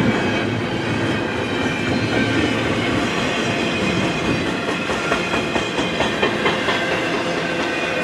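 Double-stack intermodal well cars rolling past: a steady rumble of steel wheels on rail with a faint high squeal. About halfway through comes a run of rhythmic wheel clacks, roughly three a second.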